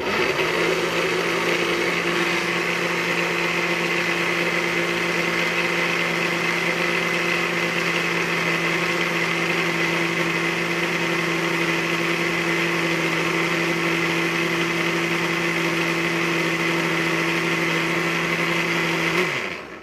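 Countertop blender motor running steadily as it blends a creamy soursop smoothie thinned with water. It makes an even hum with a high whine and cuts off just before the end.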